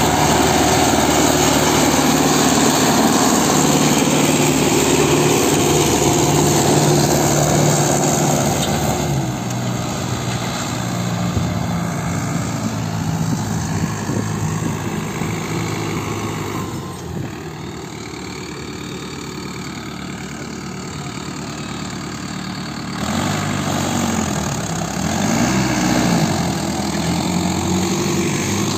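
Solis tractor's diesel engine running under load as it pulls a tillage implement across the field. It grows fainter about a third of the way in as the tractor moves off, then comes back louder near the end, its pitch rising and falling.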